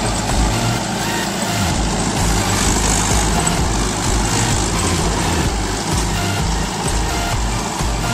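Mahindra 415 SP Plus tractor's diesel engine running steadily under load while pulling a rotavator through the field.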